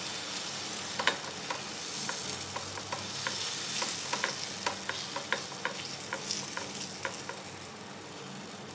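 Cheela batter sizzling in ghee on a hot nonstick tawa as a metal ladle spreads it out, with many small sharp clicks and scrapes of the ladle on the pan. The sizzle eases slightly towards the end.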